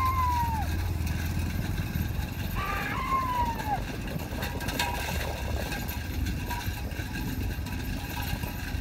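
A motor vehicle's engine drones steadily while following a two-bull racing cart at speed on a dirt track. Twice, about three seconds apart, a long high call rises and falls.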